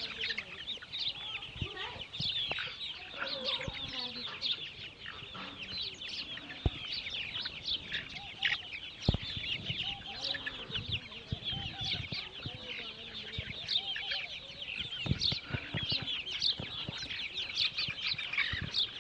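Flock of chickens in a poultry house: constant, dense high-pitched cheeping with some lower clucks mixed in, and a few sharp knocks.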